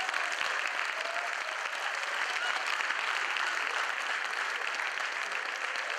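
Theatre audience applauding: a steady, dense patter of many hands clapping.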